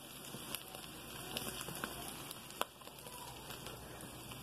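Ground pork sausage frying in a pan, a faint crackling sizzle with a few sharp pops, the flour for the gravy roux just poured over the meat.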